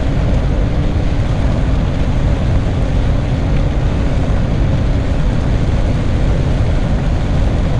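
John Deere 9500 combine running steadily, a loud, even diesel engine and machinery rumble heard from the operator's seat.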